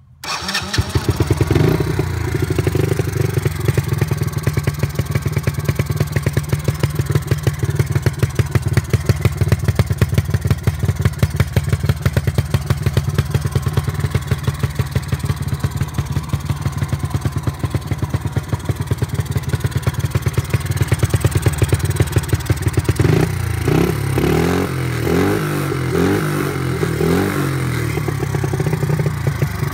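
Small single-cylinder engine of a Husky youth ATV starting on the handlebar starter button and settling into a steady, fast-pulsing idle. About 23 seconds in it is revved up and down several times, then drops back to idle.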